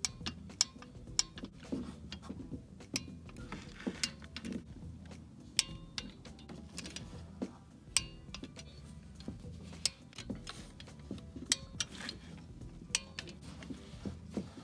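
Socket wrench ratcheting in short irregular runs of clicks, with metallic clinks of the socket and extension, as the exhaust manifold nuts are tightened down.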